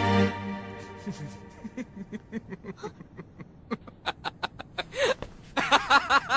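A young man's held-back laughter: short puffs of breath, quickening and growing louder, that break into open laughing near the end. A music cue cuts off at the start.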